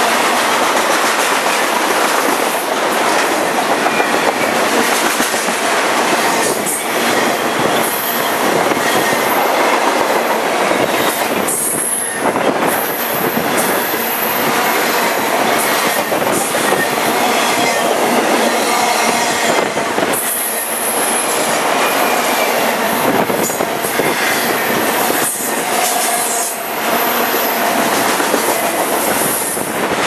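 Intermodal freight train of trailer-laden flatcars rolling past close by: a loud, steady rumble and clatter of steel wheels on rail, with now and then a brief high squeal from the wheels.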